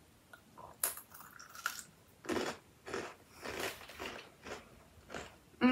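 A crispy Meiji Yan Yan biscuit stick is bitten off with a sharp snap about a second in, then chewed in a run of short crunches.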